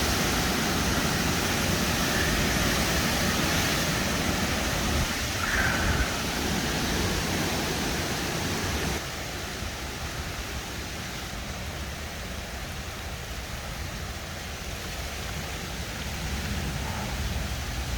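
Steady rushing noise of wind and rain from a thunderstorm, with a low rumble underneath; it drops in level suddenly about nine seconds in.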